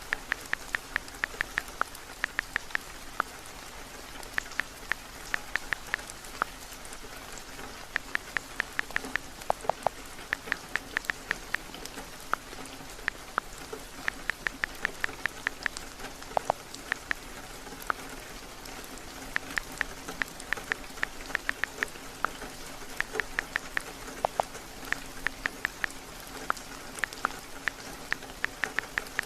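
Steady rain, with runs of rapid clicks from typing on a phone's touchscreen keyboard, several taps a second with short pauses between runs.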